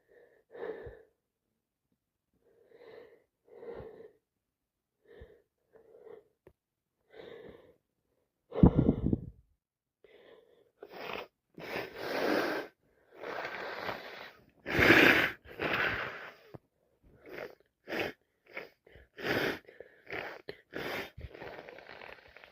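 A woman with a cold and allergies sniffling and breathing through a congested nose in short quick sniffs, then sneezing loudly and wetly about nine seconds in. A dense run of gasps, sniffs and a second strong sneeze follows about fifteen seconds in.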